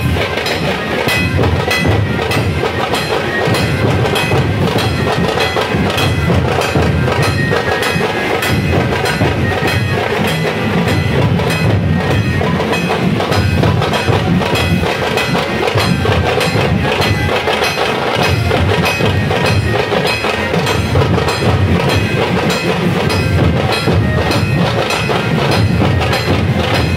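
A dhol pathak troupe playing: many large barrel-shaped dhol drums beaten together in a loud, driving, continuous rhythm of dense strokes.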